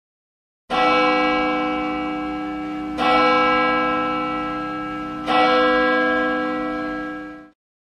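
A large bell struck three times, evenly spaced a little over two seconds apart; each stroke rings on and slowly fades, and the last dies away near the end.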